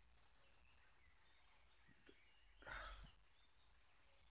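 Near silence with faint, scattered bird chirps and one brief soft noise about three seconds in.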